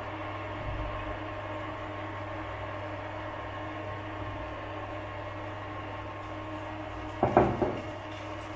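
Steady electric hum and fan whir from the induction cooktop heating the wok at medium power. A short knock and clatter sounds about seven seconds in.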